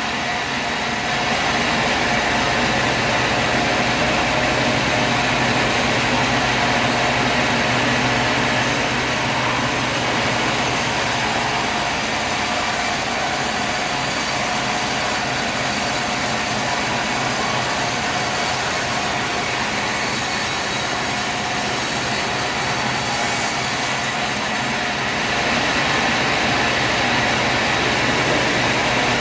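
Sawmill machinery running: a heavy saw cutting log timber, giving a loud, steady mechanical noise with a low hum. It grows slightly louder about a second and a half in and again near the end.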